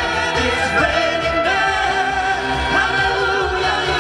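Live singing through a microphone and PA over a backing music track, the voice sliding up into long held notes several times.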